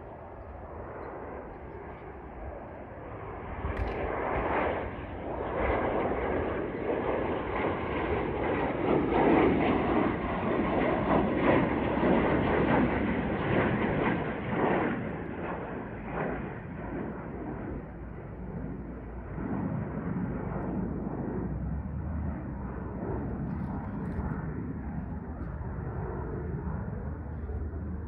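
Cessna Citation Longitude business jet climbing out after takeoff, its twin Honeywell HTF7700L turbofans heard as a rushing jet noise. The noise swells about four seconds in, is loudest mid-way with a crackle, then fades as the jet climbs away.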